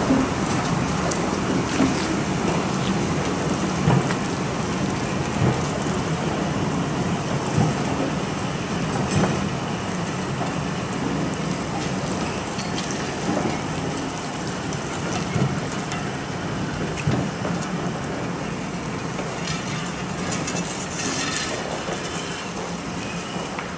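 Class 306 electric multiple unit coaches being hauled slowly past, a steady rolling rumble of wheels on rail with occasional knocks and clanks, fading gradually as the unit passes.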